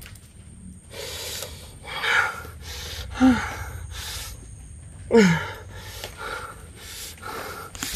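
A man breathing hard in sharp, gasping breaths, two of them, about three and five seconds in, ending in short falling groans that are the loudest sounds.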